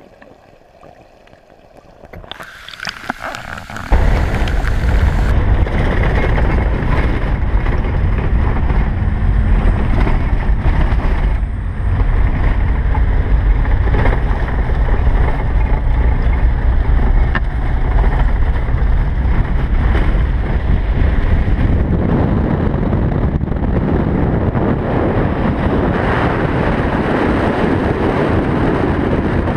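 Campervan driving on a dirt road, heard as a loud, steady rush of wind on the microphone over the van's engine and road noise, starting abruptly about four seconds in after a short, quiet, muffled underwater stretch.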